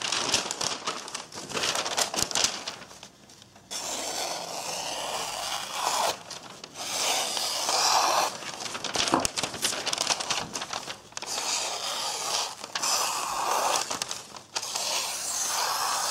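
A freshly sharpened knife blade slicing through a sheet of glossy advertising paper in a run of strokes, the paper crinkling and rustling with short breaks between cuts. It is a paper-cutting test of the new edge's sharpness.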